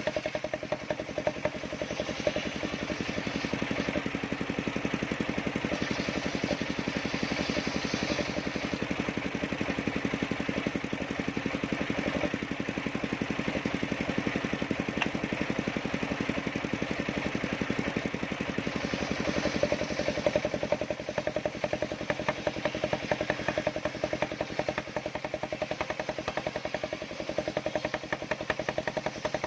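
Engine-driven circular sawmill running: the power unit chugs steadily with a fast even beat under the whir of the spinning saw blade.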